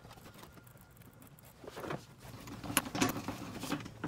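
Faint handling noises from a Jaguar S-Type's plastic engine undertray being fitted: a few light clicks and knocks in the second half.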